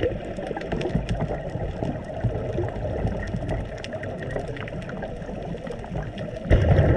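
Muffled underwater noise picked up by a diver's camera: a steady low rumble with scattered faint crackling clicks, and a sudden louder low rush starting near the end.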